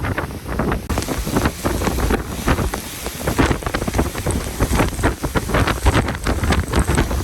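Hurricane winds and driving rain, gusting irregularly, with wind buffeting the microphone in a heavy low rumble.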